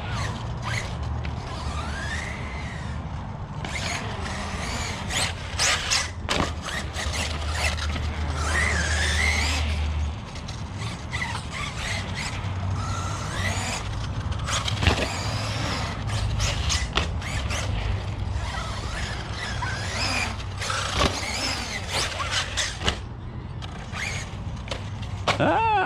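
1/8-scale ARRMA Notorious RC basher driving hard on concrete. Its electric motor whines up and down in pitch as the throttle is worked, with tyre squeals and repeated sharp knocks from landings and impacts.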